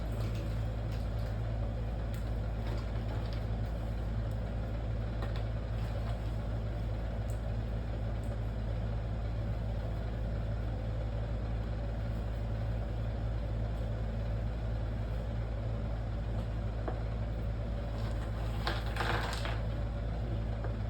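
A steady low hum, with a few faint clicks and a short rustle near the end.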